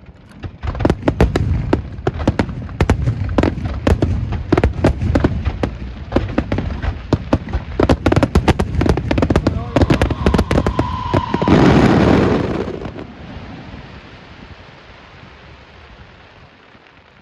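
Fireworks display: a rapid barrage of bangs and cracks, with a steady whistling tone a little after ten seconds in, and one big loud burst at about twelve seconds, after which the sound dies away in a long fading rumble and crackle.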